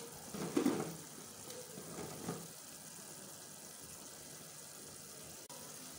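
Diced tomato and onion frying in groundnut oil in a saucepan, a steady sizzle, beside a pot of hot water. In the first couple of seconds two brief louder sounds come as broken instant noodles are dropped into the water.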